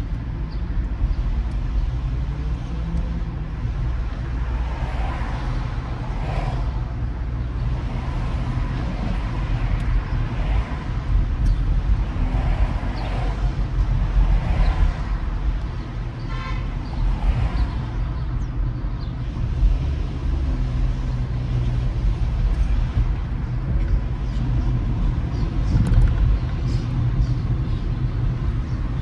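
Steady low rumble of a car's engine and tyres heard from inside the cabin while driving on city streets. A short car horn toot sounds about sixteen seconds in.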